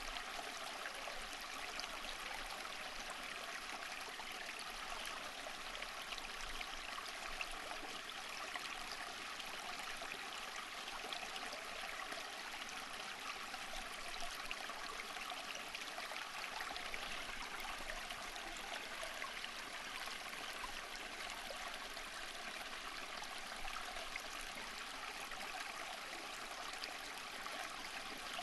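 Water flowing steadily over rocks in a stream, a constant babbling rush with small splashes and trickles.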